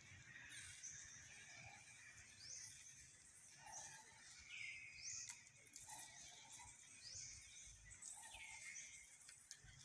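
Faint outdoor ambience with a bird calling over and over: short high chirps that sweep in pitch, repeating every second or two.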